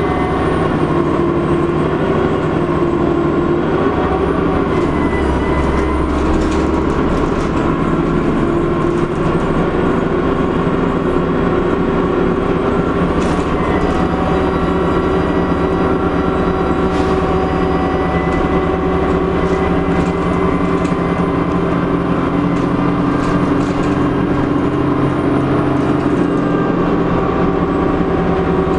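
Dennis Trident double-decker bus under way, its diesel engine running steadily with a thin, high turbo whistle held above the engine noise, and a few scattered rattles.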